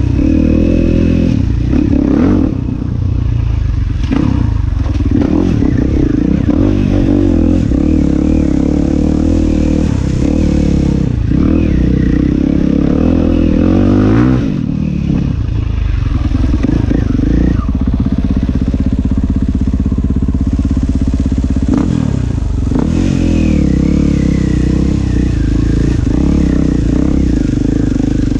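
Enduro dirt bike engine being ridden hard, heard from the rider's helmet, its revs rising and falling constantly with the throttle. The throttle is shut off sharply about two and a half seconds in and again about halfway through.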